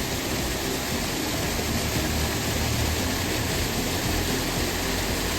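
Waterfall: water falling and rushing as a steady, even roar.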